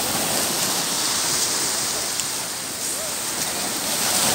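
Small waves breaking and washing up the beach, a steady rushing noise.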